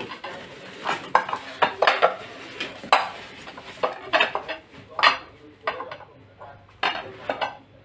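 Borosilicate glass bowls clinking and knocking against each other as the nested bowls are handled, a string of sharp clinks at irregular intervals.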